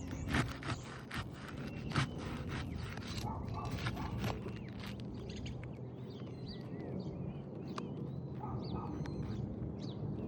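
Repeated clicks and scrapes of a roofer prying up asphalt shingles to break their seal strips, with birds chirping.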